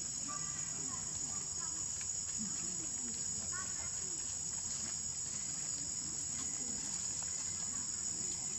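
Steady, high-pitched drone of insects, unbroken throughout, with a few faint short calls over it.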